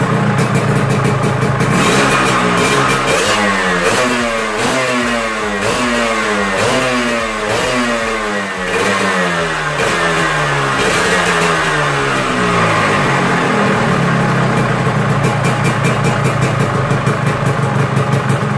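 Yamaha RXZ single-cylinder two-stroke engine running through an aftermarket exhaust. It idles, then is revved in a quick series of throttle blips about one a second, then settles back to idle.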